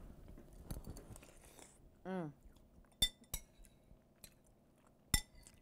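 Metal spoon clinking against a soup bowl: two quick ringing clinks about three seconds in and a third about two seconds later, with a short murmured voice just before them.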